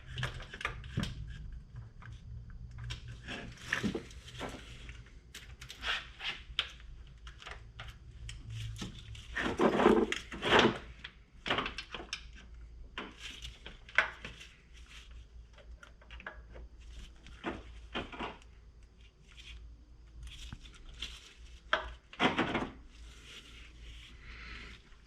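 Irregular clicks, knocks and scraping of engine parts being handled and pressed into place as fuel rails and a fuel line are fitted on an LS2 V8, with the loudest cluster about ten seconds in.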